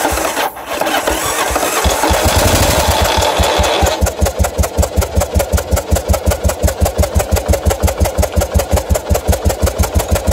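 Yamaha XV750 Virago V-twin just started and running on one cylinder, its other spark plug pulled for carburettor mixture adjustment. It runs faster at first, then about four seconds in drops to an idle of evenly spaced, pulsing beats.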